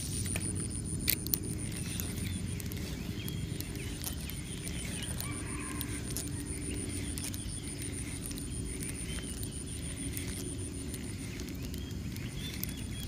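Faint bird calls over a steady high-pitched insect drone and a low rumble, with one sharp click about a second in.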